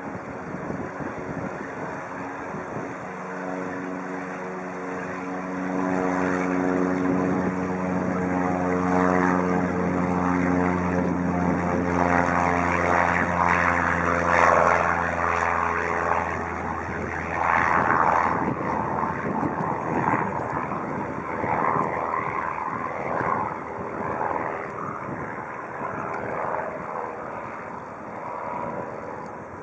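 Piper PA-28-161 Warrior II's four-cylinder piston engine and propeller droning at a steady pitch as the plane rolls along the runway, growing louder about six seconds in. About sixteen seconds in the engine tone fades into an uneven rushing noise.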